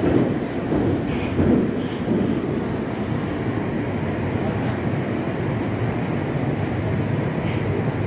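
Steady running noise of a Moscow Metro 81-765.2 'Moskva 2018' train car under way in the tunnel, heard from inside the passenger saloon: a low, even rumble of wheels and running gear.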